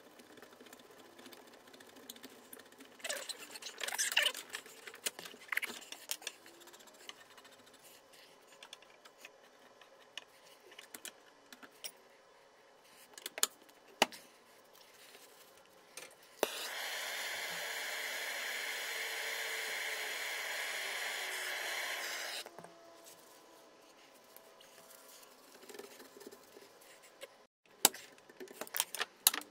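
Copper plumbing being cut and a tee fitted: scattered clicks, taps and scrapes of tools and pipe, then about six seconds of steady hiss from a blowlamp flame heating the soldered copper joint, which cuts off suddenly, followed by more clicks and handling.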